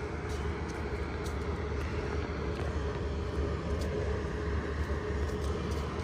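Steady low rumble with a faint steady hum above it, outdoor background noise with no clear single event.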